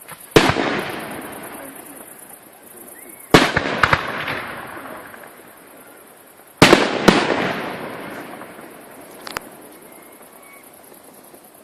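Firework shells bursting overhead: three loud bangs about three seconds apart, the second and third each followed quickly by another bang, each echoing away over a few seconds. A smaller crack comes near the end.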